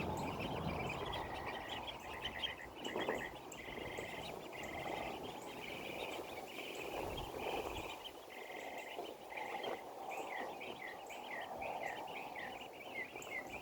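Young ducks chirping: a run of short high peeps and buzzy trilled chirps that keeps going, with quick falling peeps coming close together near the end. Wind noise runs underneath.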